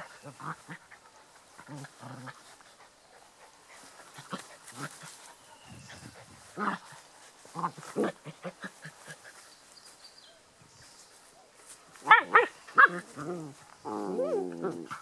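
Australian cattle dog and Irish wolfhound puppies squabbling: low grunting growls and short yaps, then a run of sharp, loud yelps about twelve seconds in and a wavering whine near the end.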